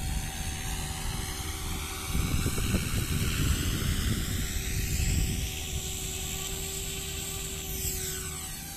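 SAB Goblin Kraken 580 electric RC helicopter flying at a distance, its motor and rotors giving a steady whine. Wind buffets the microphone, loudest from about two to five seconds in.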